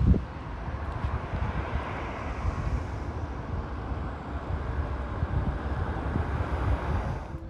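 Wind buffeting the microphone in irregular low gusts over a steady outdoor rumble, with a short knock at the very start; the sound drops suddenly near the end.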